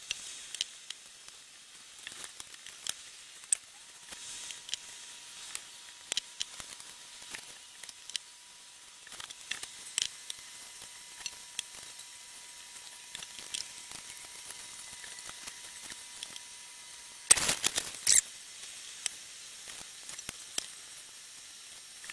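Sped-up rustling, tapping and clicking of hands folding and sealing egg roll wrappers on a countertop, with a louder clatter about two-thirds of the way through. A faint steady tone runs under much of it.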